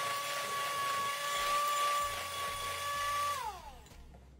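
Electric hand mixer beating chocolate batter in a glass bowl, running with a steady whine; about three and a half seconds in it is switched off and the pitch falls as the motor spins down.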